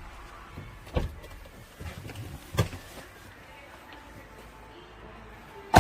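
Three short, sharp knocks: one about a second in, another about a second and a half later, and a much louder one at the very end.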